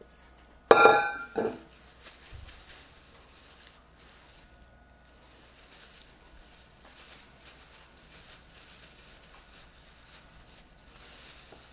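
A silicone spatula scraping and knocking against a stainless-steel mixing bowl, with a loud ringing metal clank about a second in. Afterwards, faint rustling of a plastic bag as dough is pressed inside it.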